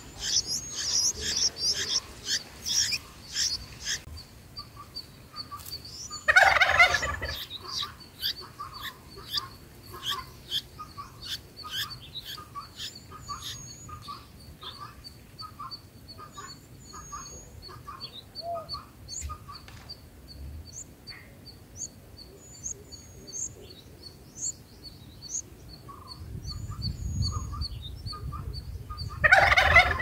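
Bulbul nestlings begging at the nest with rapid high chirps for the first few seconds. A loud harsh chattering call comes about six seconds in and again near the end. In between are scattered soft chirps over a quick, faint, high ticking.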